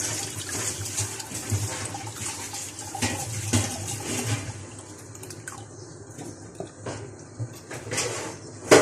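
Soaked tamarind water being poured from a steel bowl through a mesh strainer into a glass bowl, splashing and trickling. A single sharp knock near the end.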